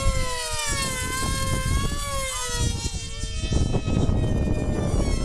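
F3D pylon racing model planes' two-stroke glow engines screaming at full throttle. Several are heard at once, and their pitch slides slowly up and down as they pass the field.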